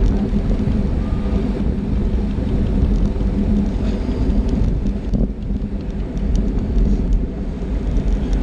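Wind rushing over the microphone of a camera on a road bike riding in a pack at speed, with a steady low rumble from the tyres on the road. A few light ticks come in the second half.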